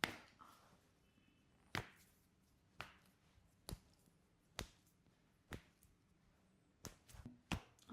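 A series of about eight short, sharp clicks, roughly one a second, during a chiropractic adjustment session.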